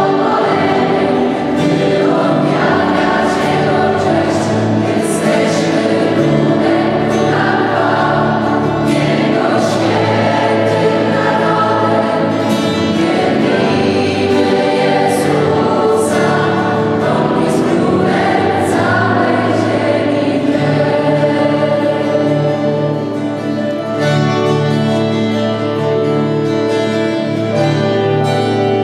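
A large mixed youth choir singing a gospel song together, with a woman's lead voice on microphone. The singing is sustained and carries on without a break.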